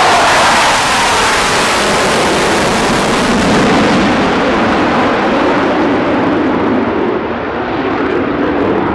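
Two Dassault Rafale M fighters' twin Snecma M88 turbofans, passing in formation and climbing away on afterburner: a loud, continuous jet noise. Its pitch falls over the first second as they go by, then it settles into a lower rumble.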